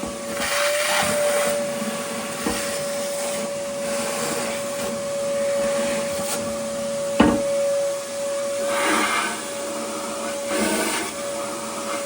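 An electric motor running steadily with a constant high whine and a rushing hiss, and one sharp knock about seven seconds in; it cuts off right at the end.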